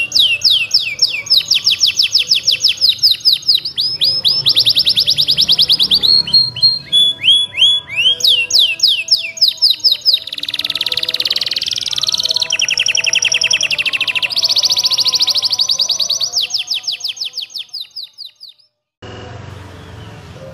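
Domestic canary singing long rolling trills of rapid, repeated down-slurred notes, moving from one tour to the next with changes of speed and pitch, including a denser, buzzier run in the middle. The song fades and stops shortly before the end.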